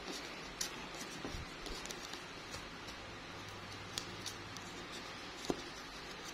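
Small cardboard tiles of a homemade sliding puzzle pushed and scraped across a cardboard board by fingertips, with a few light taps and clicks, the loudest about five and a half seconds in, over a steady faint hiss.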